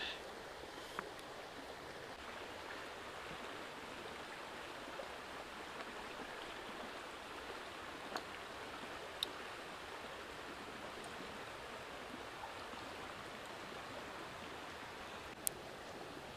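Shallow river running over stones, a steady rushing hiss, with a few sharp pops from the small wood fire crackling.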